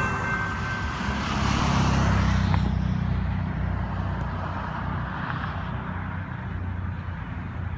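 Low rumble of a light rail train and street traffic, swelling about two seconds in and then settling to a steady low hum.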